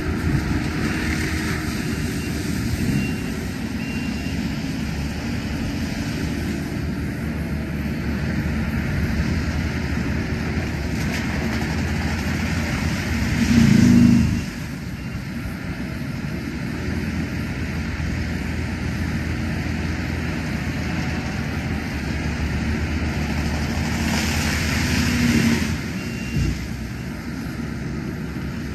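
Heavy machine carrying a forestry mulcher head running steadily out of sight, a continuous engine drone that swells louder twice, about halfway through and again near the end.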